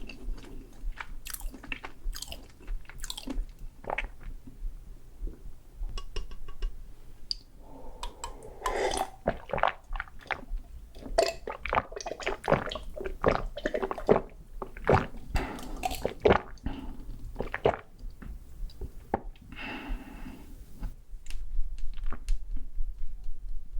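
Close-miked eating: irregular chewing with crunchy bites and crackles, busiest in the middle stretch, over a faint steady low hum.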